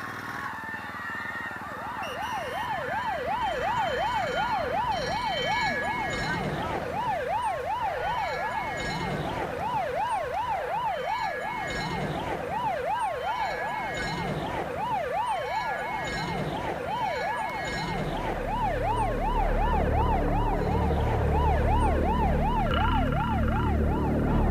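Emergency-vehicle siren in a fast yelp, its pitch sweeping up and down several times a second, starting about two seconds in and stopping near the end. A low rumble builds underneath it in the last few seconds.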